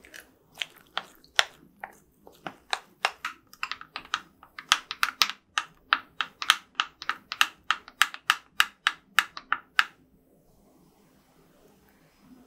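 Steel spoon clinking against a ceramic bowl while whisking gram-flour batter: a run of sharp taps that quickens to about four a second and stops a couple of seconds before the end.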